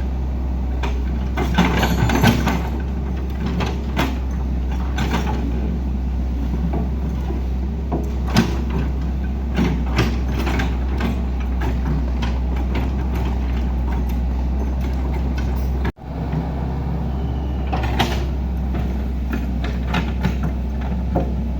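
Heavy diesel machinery running steadily at a low drone, with scattered metallic clanks and knocks from the machine at work.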